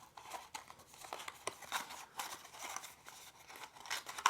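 A small cardboard box being worked open by hand, with light scraping, rustling and clicking of card and packaging.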